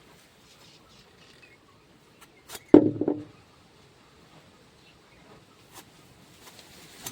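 Handling noise: faint scattered clicks, then a sharp knock about three seconds in, with a short low rattle after it as something hard is set down or struck.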